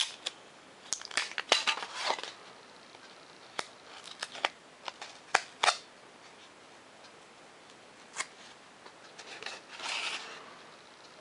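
Foam-board airplane parts handled and fitted together on paper plans: scattered sharp clicks and taps of the stiff board, with a short rasping rustle near the end.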